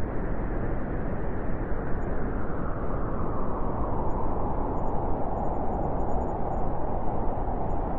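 Howling wind blowing steadily and loudly, a full rushing noise with a hollow howl that grows stronger about halfway through.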